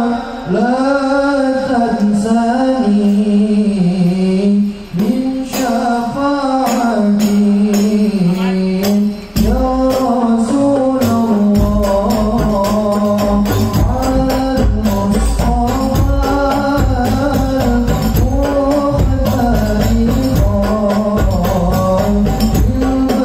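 Male voice singing an Arabic sholawat through a microphone and PA, in long ornamented phrases. About five seconds in, sharp hand-drum strokes of a hadroh (rebana) ensemble join in, and near ten seconds a deep bass drum enters and keeps going under the voice.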